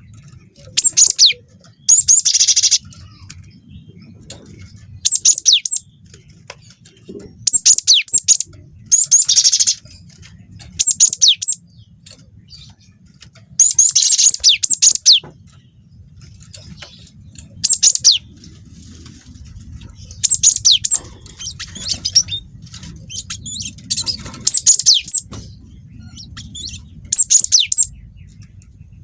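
Cinereous tit (gelatik batu) singing vigorously: about a dozen short, loud bursts of rapid high chirping notes, separated by gaps of one to three seconds, over a faint low hum.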